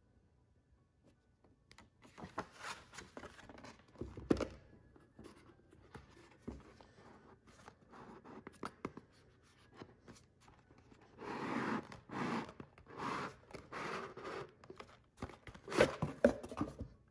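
Cardboard Louis Vuitton gift box being handled: the inner box scrapes as it slides out of its sleeve, with a sharp knock about four seconds in. Later comes a run of rustling bursts and clicks as the cotton dust bag inside is handled.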